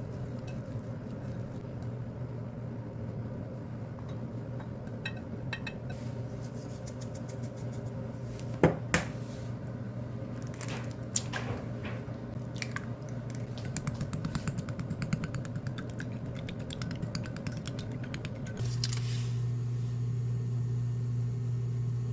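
A steady low hum from a kitchen appliance's motor or fan, stepping up louder about eighteen seconds in. There are a few sharp clinks near the middle.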